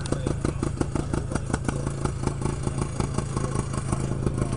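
Vintage snowmobile engine idling at close range, an even, rapid popping beat over a steady low hum.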